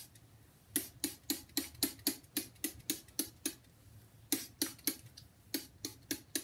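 Hand-pumped spray bottle squirted quickly over and over, about four short spritzes a second: a run of about eleven, a brief pause a little past the middle, then about eight more.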